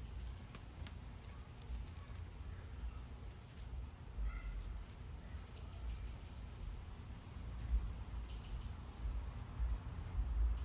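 Outdoor backyard ambience: a low rumble, like wind on the microphone, with a few faint short high chirps and scattered light clicks.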